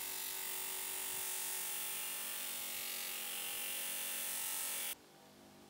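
Bench grinder running with a polishing wheel, the small metal sleeve of a ratcheting screwdriver held against it: a steady motor hum under a high hiss where the wheel rubs the metal. It cuts off suddenly about five seconds in.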